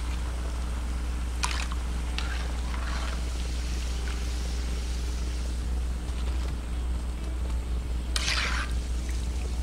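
Battered seitan pieces deep-frying in hot oil: a steady sizzle over a strong low hum, with a few short louder crackles, the longest about eight seconds in.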